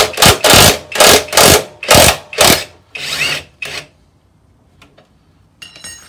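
Cordless impact wrench hammering in repeated short trigger bursts on a scooter's front axle bolt, undoing it, then a longer, quieter run about three seconds in. A few faint clicks near the end.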